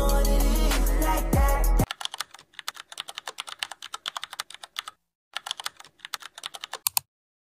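A hip hop song with a deep bass beat cuts off about two seconds in. A rapid keyboard-typing sound effect follows, a fast run of clicks with a short break in the middle, and stops near the end.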